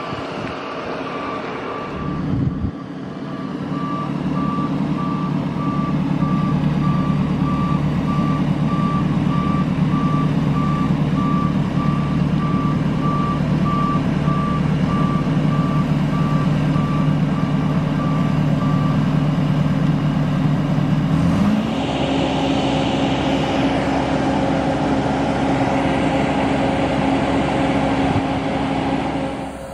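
A boat travel lift's engine running steadily while its warning beeper sounds an even, repeating beep, as the lift moves a sailboat hanging in its slings. The beeping stops about 19 seconds in, and a couple of seconds later the engine speeds up and holds a higher note.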